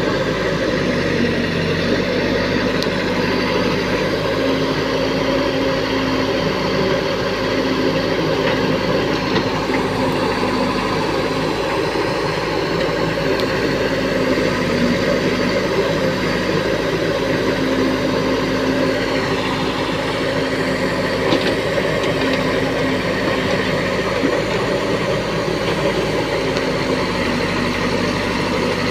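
Diesel engines of a Case 770 backhoe loader and a Sonalika tractor running together, a steady low engine note that holds level throughout with only slight changes in pitch.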